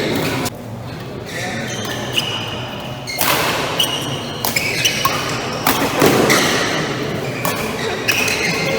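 Badminton rally on an indoor court: shoes squeaking in short bursts on the court floor, with sharp racket hits and footfalls ringing in the hall.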